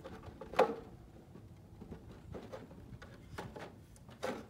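Wooden frames in a Langstroth brood box knocking and sliding against each other and the box as they are pushed together: a handful of short wooden clacks, the loudest about half a second in.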